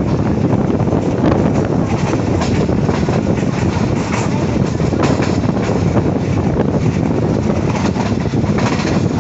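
Pakistan Railways passenger coach running along the track, heard from an open window: steady noise of steel wheels on the rails with irregular clicks.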